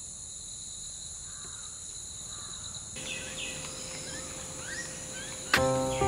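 Steady, high-pitched insect drone of crickets or cicadas. Birds chirp briefly from about halfway through. Music starts loudly near the end.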